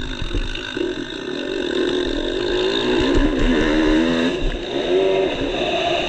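Motocross bike engine revving hard under load, its pitch climbing for a couple of seconds, dropping briefly about four seconds in, then rising again as it powers up a steep dirt hill. Wind rumble on the microphone.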